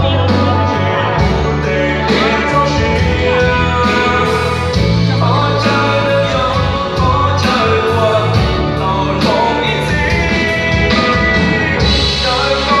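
A live band with a singer, playing amplified rock-style music through the PA in a large hall.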